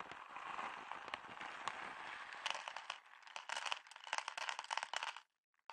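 Plastic bag of Purina Friskies dry cat food crinkling as it is tipped, with kibble pellets rattling into a plastic bowl. The clicks of falling pieces come thicker in the second half, and the pouring stops suddenly near the end.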